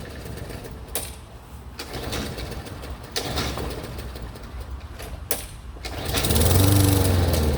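Lawn mower engine that is hard to start running unevenly: it sputters at low speed with a few sharp clicks, then revs up loudly near the end and drops back again, struggling to keep running.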